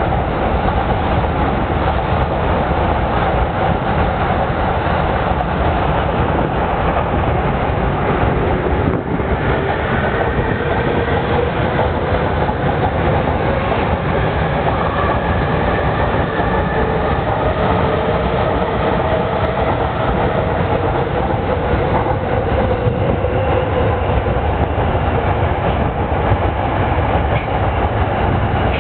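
Electric commuter trains passing on elevated tracks: a steady loud rumble of steel wheels on rail with some clickety-clack. A faint motor whine shifts in pitch through the middle as a train runs alongside the platform.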